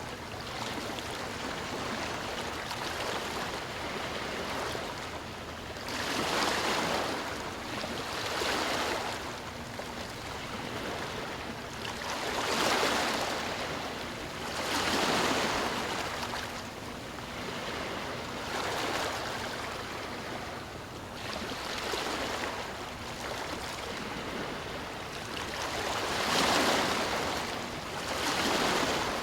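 Sea waves rushing in, the surf swelling and easing every few seconds over a steady wash of water.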